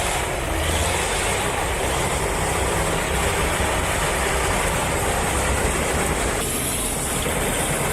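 TT-4 tracked skidder's diesel engine running steadily under load, with a continuous mechanical clatter.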